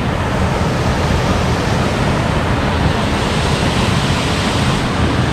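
Waterfall rushing: a steady, even noise of falling water.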